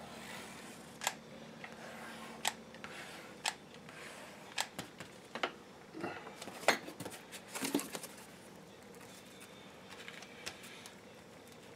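Cardboard sheets and a hot glue gun being handled on a wooden workbench as the layers are glued and stacked: about a dozen sharp clicks and taps at uneven intervals, the loudest a little past the middle.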